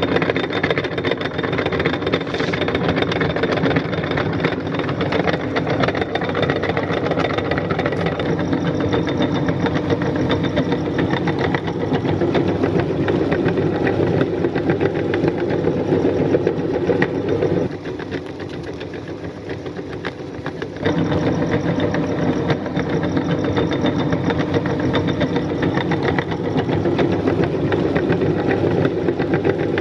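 Meat grinder motor running steadily as Oreo cookies are fed through it; the sound drops in level for about three seconds a little past the middle, then comes back at full level.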